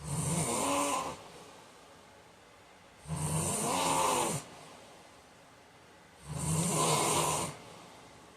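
A man snoring in his sleep: three snores, each lasting just over a second and coming about every three seconds, each a low buzz with a hissing top.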